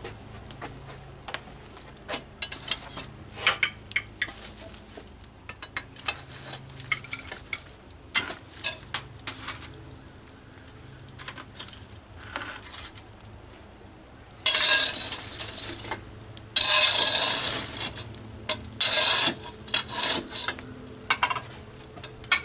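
Long metal fire tool knocking and scraping across the hot floor of a wood-fired pizza oven as burning coals are pushed to the side, with scattered clicks throughout and two longer, louder scrapes about two-thirds of the way through.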